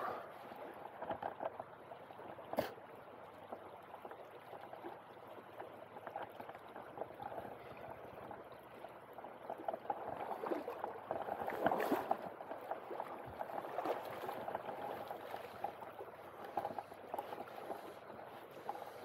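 Shallow river current rippling and gurgling over a stony riffle, swelling louder for a couple of seconds about ten seconds in. Two short sharp clicks stand out, one near the start and one around the loudest stretch.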